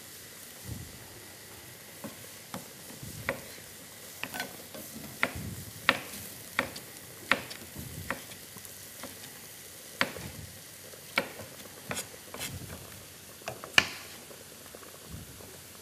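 Chicken strips with tomatoes and peppers sizzling in a frying pan, with a dozen or so irregular sharp clacks of utensils as the pan is stirred; the loudest clack comes near the end.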